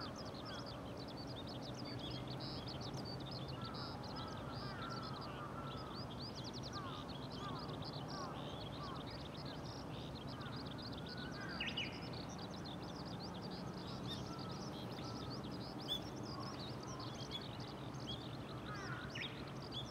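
Dawn bird chorus: many birds chirping in quick high notes throughout, with repeated lower swooping calls, over a faint steady low hum.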